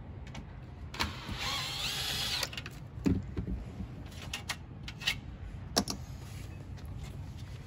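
An aluminium sliding screen door being handled: a scraping squeal lasting about a second and a half, then a low thump about three seconds in as the frame comes down, followed by a few light metallic clicks.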